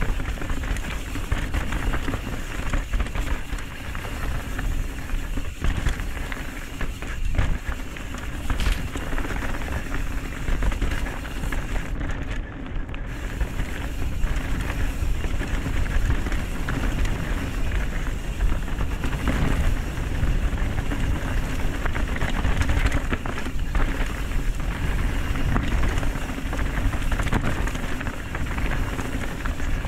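Mountain bike rolling down a dirt trail: a steady, loud rumble of tyres on the ground and wind on the camera's microphone, with a few sharp knocks from the bike over bumps.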